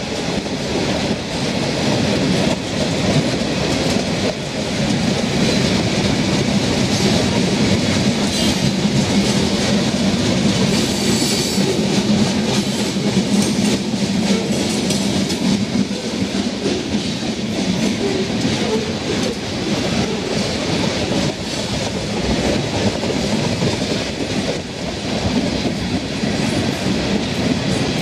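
Freight cars of a long mixed freight train (covered hoppers, tank cars, boxcars) rolling past: a steady rumble and rattle of steel wheels on the rails.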